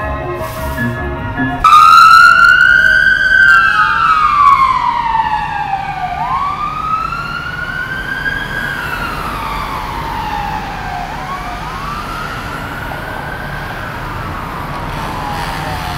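Music cuts off suddenly about two seconds in and gives way to an emergency vehicle siren in a slow wail, its pitch sweeping up and down every few seconds. The siren is loudest at first and fades steadily through the rest.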